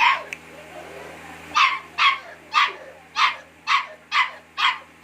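Pit bull puppy barking: one bark at the start, then after a pause of about a second and a half a steady run of seven short, high-pitched barks, about two a second.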